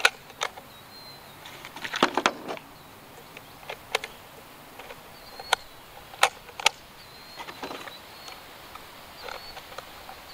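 12-gauge shotgun shells being pressed one by one into the AR-12's box magazine: irregular sharp plastic-and-metal clicks and snaps, with a quick cluster about two seconds in.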